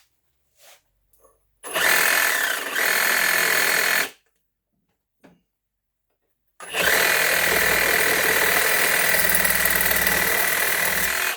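A power tool cutting the end off a copper-sleeved fitting with a steel core. It runs twice, about two and a half seconds and then nearly five seconds, with a steady high whine whose pitch dips briefly in the first run.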